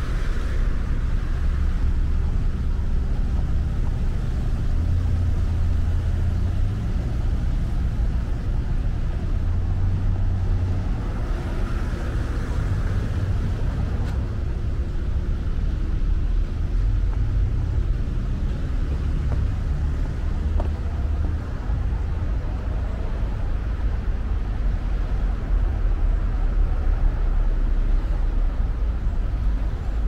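Steady low rumble of road traffic, with vehicles running close by.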